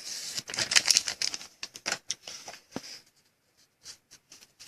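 Trading-card pack being torn open and the cards handled: wrapper crinkling and rustling with quick light clicks, busiest in the first three seconds and then dropping to a few scattered taps.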